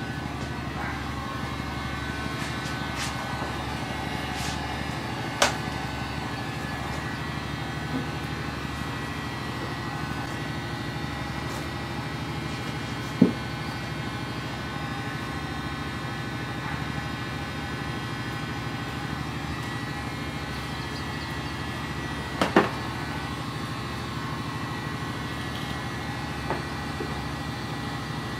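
Electric heat gun running steadily, its fan blowing with a steady whine, as it heats a plastic bumper. A few brief knocks come through.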